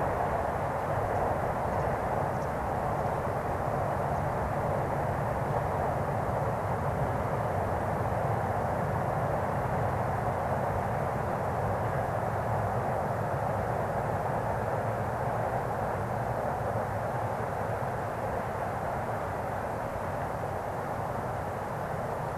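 Steady distant rumble of a Chuo-Sobu Line local train, an E231 series electric multiple unit, crossing a long steel truss railway bridge, easing slightly near the end.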